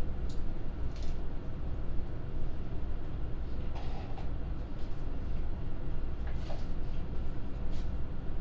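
A steady low rumble, with a few short faint clicks scattered through it.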